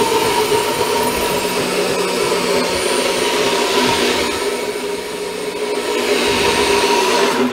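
NutriBullet personal blender motor running at a steady high speed, a loud whirring with a held whine, whipping air into a thick sauce; it cuts off suddenly at the very end.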